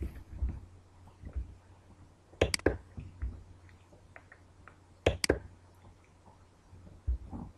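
Computer mouse button clicking: two sharp press-and-release clicks about two and a half seconds apart, with a few faint ticks between, over a low steady hum.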